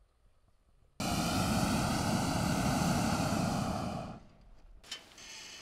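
Hot air balloon's propane burner firing in one blast of about three seconds. It starts abruptly about a second in and dies away just after four seconds.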